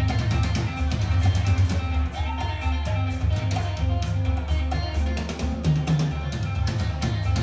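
A band playing live: electric guitar and a drum kit keeping a steady beat.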